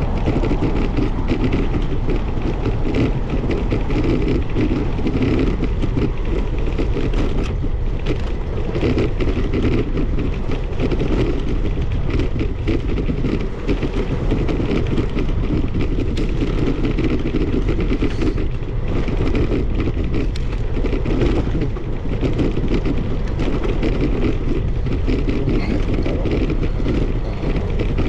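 Steady rush of wind buffeting the microphone, mixed with rolling road noise, while riding a bicycle along a paved path.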